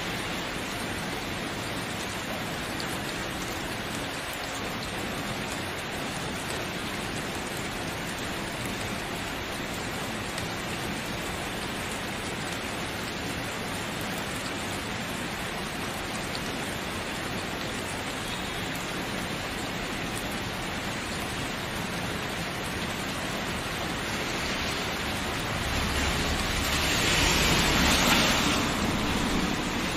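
Steady rain falling, an even hiss. Near the end it swells louder and fuller for a few seconds, then eases back.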